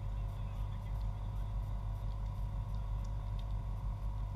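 Steady low background rumble with a faint constant hum, and faint distant voices at times.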